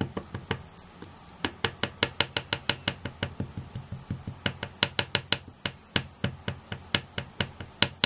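A stamp being tapped repeatedly onto a Tuxedo Black ink pad to ink it: quick, sharp taps, about five a second, with a short pause about three seconds in.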